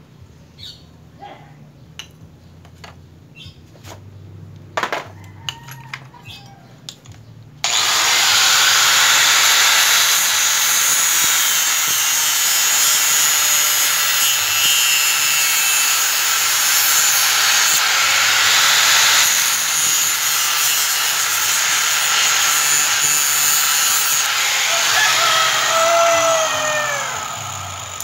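Angle grinder switched on with a sudden start about eight seconds in, cutting a chrome grille trim piece with a steady harsh grinding noise, then winding down with a falling whine near the end. Before it, light clicks and taps of handling the parts.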